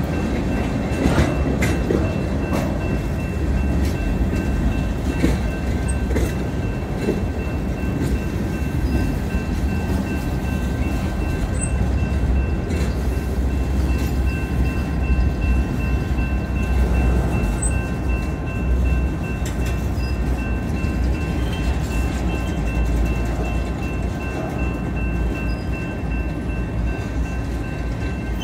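Union Pacific manifest freight train's tank cars and covered hoppers rolling past over a grade crossing. There is a steady low rumble of wheels on rail with scattered clicks and clanks, and a steady high-pitched tone above it.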